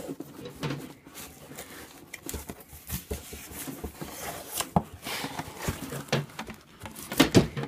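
Handling noise from unpacking: a cardboard box rustling and knocking, with irregular clicks, as hands lift a boxed soldering rework station and its power cord out of the packing.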